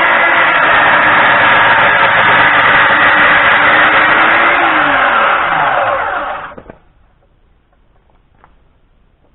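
Electric circular saw running loud through an angled cut in a board. About four and a half seconds in its whine falls as the blade winds down, and it stops about a second and a half later.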